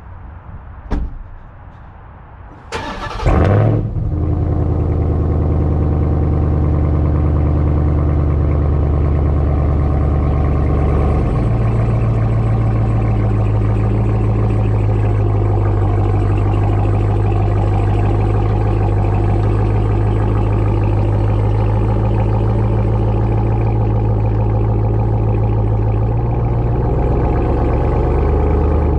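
A Ram 1500 TRX's supercharged 6.2-litre Hemi V8 starting. There is a click, then a short crank and catch at about three seconds, and then it settles into a steady idle. The idle note shifts once, about eleven seconds in.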